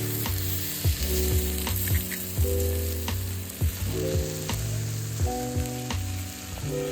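Food sizzling steadily in a hot pan, a continuous crackling hiss.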